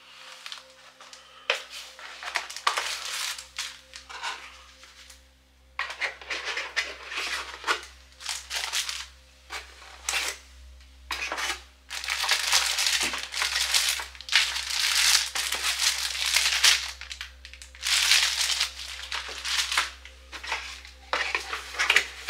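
Plastic bags crinkling and rustling in irregular bursts as packaging with the cables inside is handled, over a faint steady hum.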